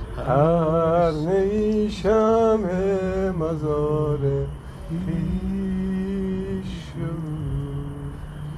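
A man singing slowly, with long held notes that waver and bend in pitch, in a few phrases separated by short breaths.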